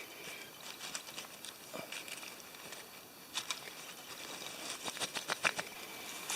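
Dry twigs and forest leaf litter crackling in short, scattered clicks, irregular and with no steady rhythm, thickest near the end.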